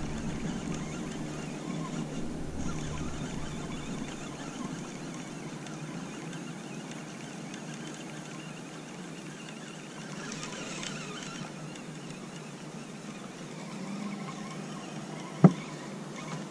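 Steady running noise of an inflatable boat moving at trolling speed, with one sharp click about fifteen seconds in.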